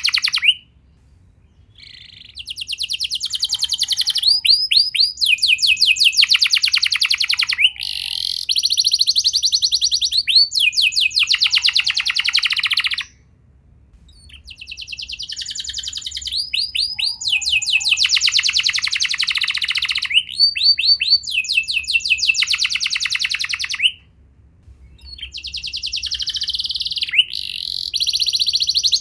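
Domestic canary singing long phrases of rapid, rolling trills and warbles. The song breaks off for about a second three times: just after the start, near the middle and near the end.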